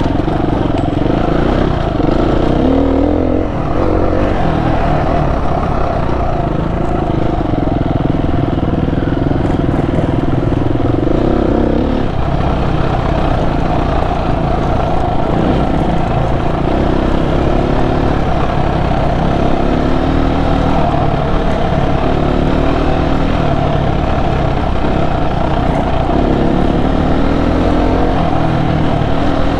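Dual-sport motorcycle engine running under way, its pitch rising and falling with the throttle.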